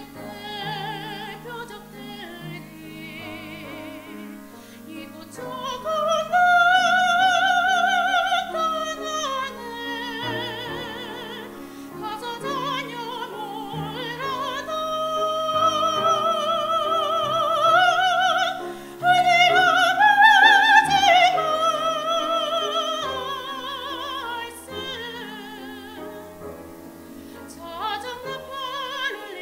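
Female soprano soloist singing a hymn in Korean with wide vibrato over piano accompaniment; the voice swells to its loudest on long held phrases in the middle, then eases back near the end.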